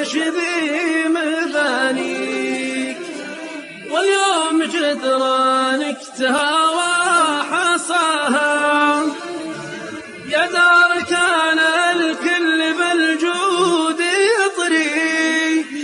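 A single unaccompanied voice chanting a slow Arabic sung poem, holding long notes that waver and bend, with short breaths between phrases.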